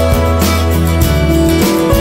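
Background music: an upbeat tune played on plucked string instruments, with a steady bass line.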